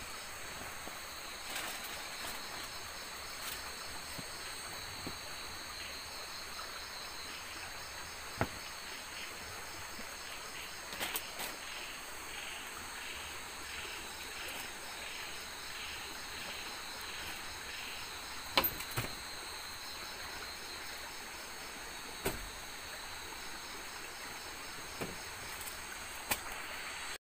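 Night chorus of crickets and other insects, a steady high trill, with a pulsed call repeating about twice a second for several seconds in the middle. A few sharp knocks and rustles from bedding being handled stand out above it.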